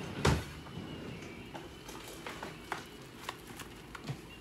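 Handling noise: a single thump shortly after the start, then faint scattered clicks.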